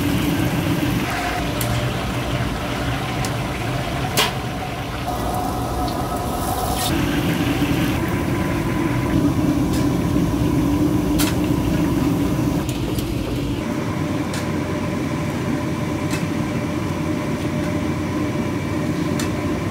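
Steady low mechanical rumble with a faint steady hum, the kind of engine and traffic noise heard by a roadside stall. A few sharp metallic clicks are scattered through it.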